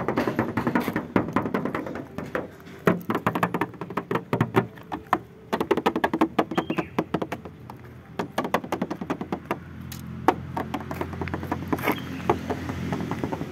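Hand tapping and knocking on the sheet-metal body panels of a 1985 Honda Civic Wonder, a quick irregular run of knocks, several a second. A low steady drone comes in about two-thirds of the way through.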